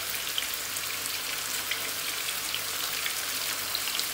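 Masala-coated sardines shallow-frying in coconut oil on a low flame: a steady sizzle with many small crackles.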